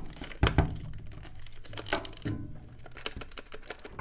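Plastic clicks and knocks as a saddle accessory is pressed and worked onto a large plastic Star Wars Black Series Dewback figure, with the loudest sharp clicks about half a second in and again near two seconds. The saddle's back end will not seat.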